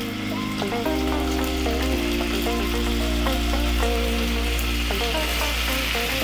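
Carrots sizzling as they fry in hot oil in a pan, a steady hiss, over background music.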